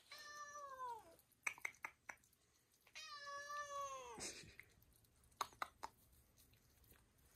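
Calico mother cat meowing twice: two long calls that fall in pitch at the end, the second one longer. A few short, sharp clicks come between and after the calls.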